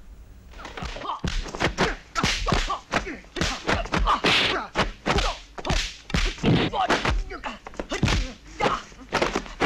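Kung fu film fight sound effects: a rapid series of punch and kick impacts, with fighters' short shouts and grunts between the hits.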